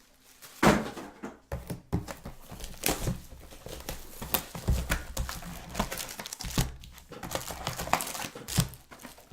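Trading card boxes and packs being handled and opened: wrappers crinkling and tearing, with irregular taps and knocks.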